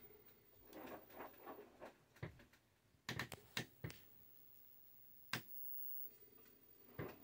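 LG washer-dryer combo's direct-drive drum turning slowly at the start of a spin, heard faintly as scattered light clicks and knocks from the tumbling load. A faint steady hum comes in toward the end.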